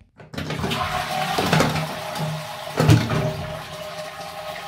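Toilet flushing from a push-button cistern: water rushes out of the tank into the bowl from a moment in, with a louder surge near three seconds. The supply tap is shut off, so the flush is draining the cistern.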